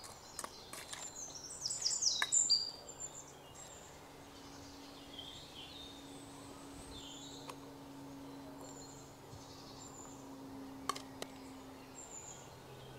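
Small birds chirping, with a flurry of quick calls about two seconds in and scattered single chirps after, over a faint steady low hum.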